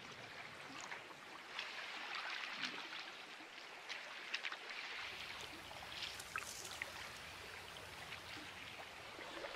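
Spring river breakup: water flowing among drifting broken ice floes, with many small clicks and crackles of ice throughout. A low rumble joins about halfway.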